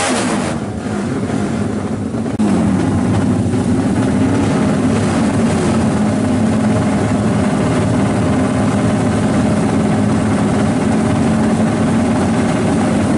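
Racing motorcycle engines of a drag bike meet running loud and steady. The sound jumps up suddenly about two seconds in and then holds at a steady high pitch.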